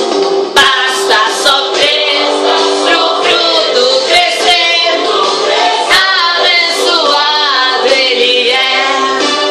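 A song: voices singing a wavering melody over instrumental backing, with a few sharp percussion hits.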